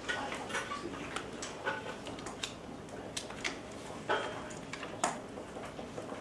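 A quiet classroom of students writing: scattered small clicks and taps, with faint rustling between them.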